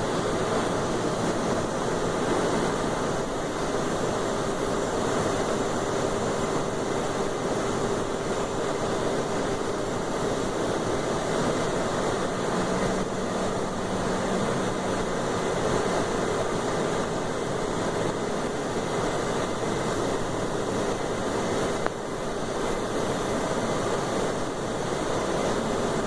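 Steady rushing noise of a Cessna 560 Citation V in flight: its two turbofan engines and the airflow, with a faint steady hum underneath and a brief lower hum about halfway through.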